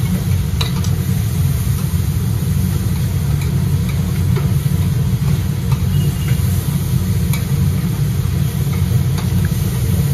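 Metal spatula scraping and clicking on a large flat iron tawa as egg rice is stirred and fried, a few sharp taps scattered through, over a steady low rumble from the cooking burner and kitchen.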